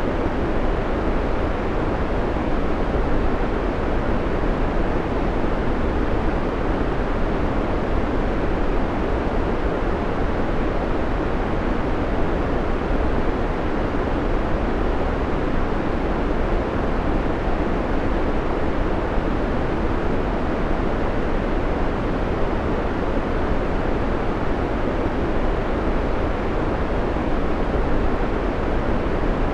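Steady white noise played as a timer's background: a constant, even rushing hiss that never changes, fuller in the low and middle range than a bright hiss.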